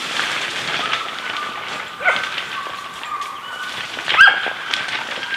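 A pack of hunting dogs barking and yelping during a driven hunt, with a sharp knock about four seconds in.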